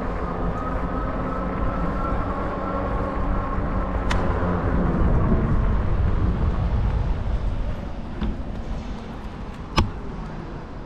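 Rumble of wind and tyres from a moving bicycle, picked up by a handlebar camera, with a steady hum over it at first. It gets quieter about three quarters of the way through as the bike slows to a stop. Two sharp clicks come from the bike or its wire basket, one about four seconds in and a louder one near the end.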